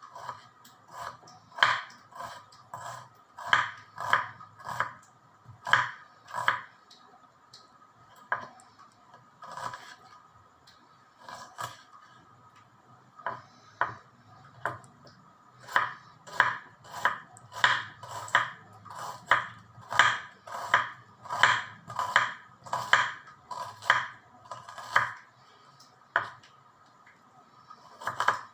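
A kitchen knife chopping on a cutting board in a series of sharp knocks, irregular with short pauses at first, then a steadier run of about two strokes a second.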